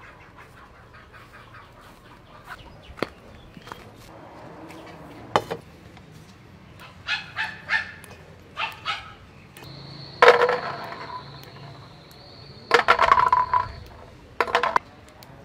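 Chickens calling several times, the loudest calls about two-thirds of the way through and again near the end, over scattered light clicks from pea eggplants being plucked off their stems. A steady high whine sets in partway through.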